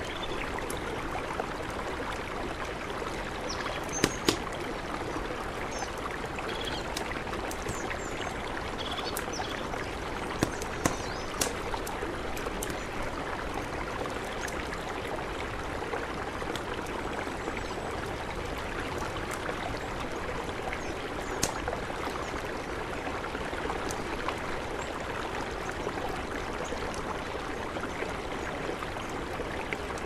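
A mountain river rushing steadily, with a campfire giving a few sharp crackling pops, two close together about four seconds in, a cluster near eleven seconds and one past twenty. Faint short bird chirps sound in the first ten seconds.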